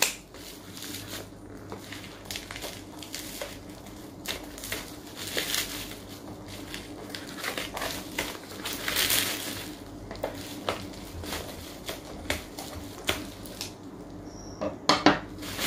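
Bubble-wrap packaging being unwrapped and handled by hand: irregular crinkling and crackling with scattered sharp clicks.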